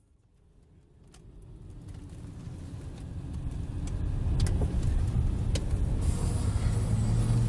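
Car driving along a wet road, heard from inside the cabin: a low engine and tyre rumble that fades in from near silence and grows steadily louder, with a few faint clicks.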